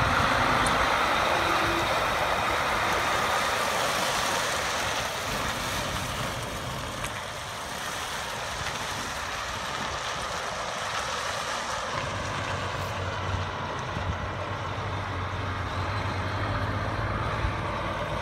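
A truck running, engine and road noise louder at first and easing off over the first several seconds, then a steady low engine hum from about two-thirds of the way in.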